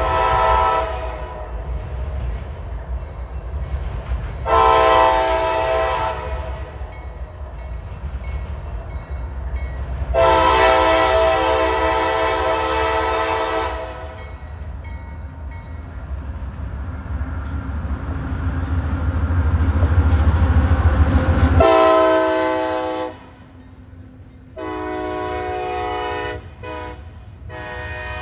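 Air horn of a CSX diesel freight locomotive sounding in repeated long blasts, with shorter blasts near the end, over the low rumble of the passing locomotive's engine. The rumble builds, then drops away sharply about two-thirds of the way through as the locomotive goes by and double-stack intermodal well cars start rolling past.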